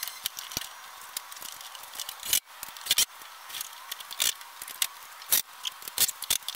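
A run of irregular sharp clicks and short scraping rustles, a few of them louder than the rest, with no engine running.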